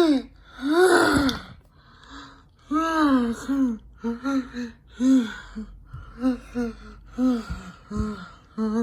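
A high-pitched voice making a run of short wordless vocal sounds, about a dozen, each rising and falling in pitch, with no steady fan hum standing out beneath them.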